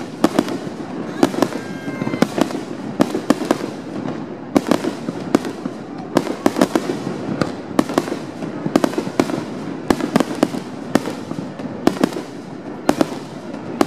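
Aerial fireworks display: shells bursting in quick, irregular succession, about three sharp bangs a second, over a steady background rumble.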